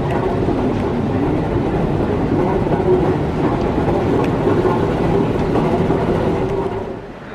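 Steady rumble of a moving walkway running, heard while riding on it, with a faint hum over the noise; it drops away near the end.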